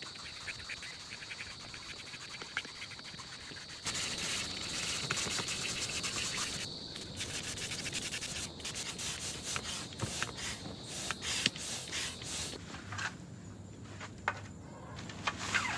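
Bestway Air Hammer hand pump inflating an air bed: repeated strokes of air rushing through the pump, quicker and louder from about four seconds in. A few sharp knocks near the end.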